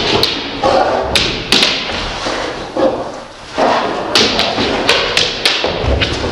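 A Vizsla and a pointer play-fighting: repeated thumps and taps of paws and bodies hitting the floor and each other, with scuffling in between and a brief lull a little past the middle.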